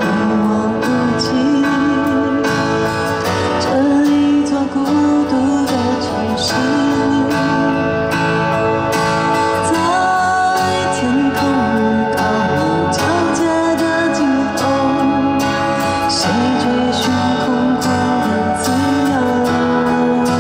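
Live pop ballad: a woman singing a sustained, wavering melody over band accompaniment with guitar.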